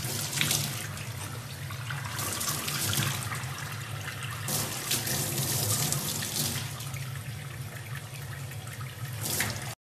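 Tap running into a stainless steel sink, the water splashing unevenly as a baby chimpanzee's hands move under the stream.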